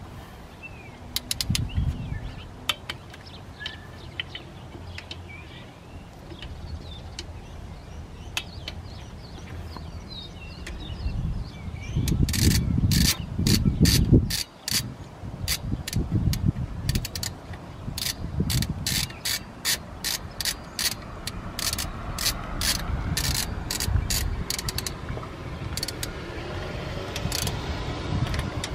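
Hand ratchet clicking in quick runs as bolts are turned down, most likely the water pump bolts on a Chrysler 3.5L V6, with low thuds from the wrench being handled in between.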